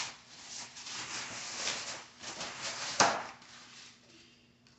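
Thin white packing sheet being pulled off a flat-pack TV stand panel in its cardboard box: rustling and crinkling, with one sharp louder sound about three seconds in.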